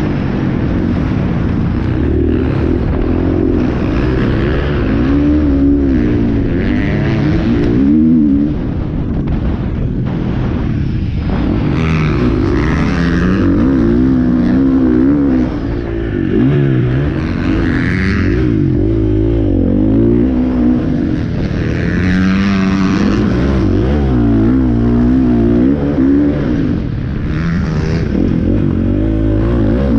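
Dirt bike engine heard from the bike's own on-board camera, revving up and down again and again as the rider opens and closes the throttle through the turns and straights of a motocross track.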